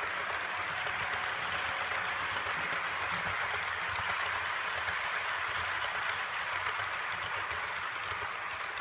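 OO gauge model train's coaches rolling past on the track: a steady rushing rattle full of quick clicks from the wheels on the rails, easing off a little as the last coach goes by.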